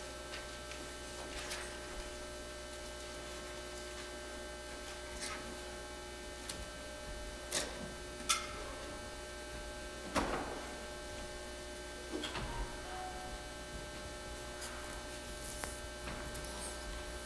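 Steady electrical mains hum, with a few faint knocks and clicks scattered through it.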